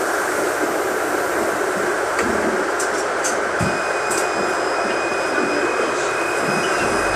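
Cabin noise of a NefAZ 5299 city bus on the move: a steady hiss of engine and tyres on a wet road, with a few light clicks and rattles and a thin, steady high whine that starts about halfway through.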